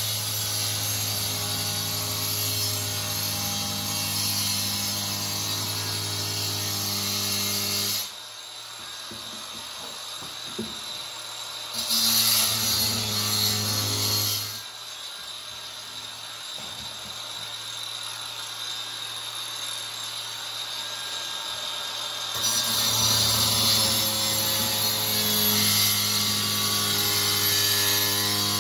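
Handheld tile disc cutter with a diamond blade running and cutting out the grout line between wall tiles. It cuts steadily, stops about eight seconds in, runs again briefly around twelve seconds in, then after a quieter stretch runs steadily again for the last six seconds.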